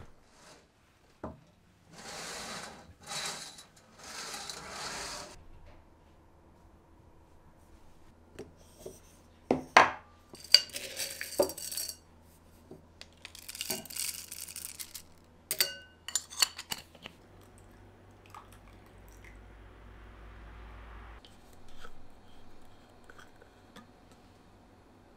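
Tableware being handled: dishes and cutlery clinking and knocking in scattered strokes. About two seconds in there are three short bursts of noise, and a faint low hum sits under the latter part.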